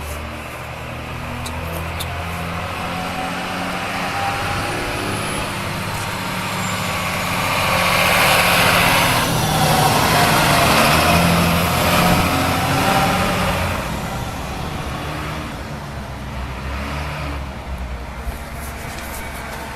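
A large vehicle engine running steadily, with passing traffic that swells louder for several seconds in the middle and then fades.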